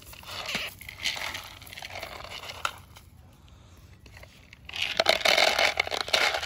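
A dog crunching dry kibble, a crackly chewing in spells that is loudest from about five seconds in.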